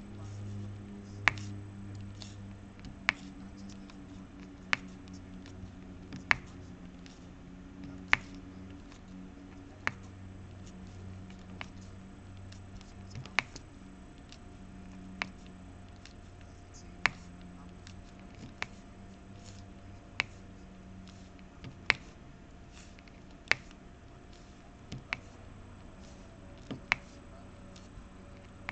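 Diamond-painting drill pen tapping square drills onto the canvas one at a time: a sharp tap about every one and a half to two seconds, over a low steady hum.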